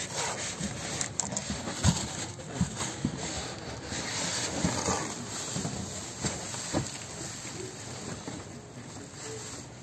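Clear plastic wrapping crinkling and a cardboard box scraping as a boxed mitre saw is unpacked, with a few dull knocks from the handling.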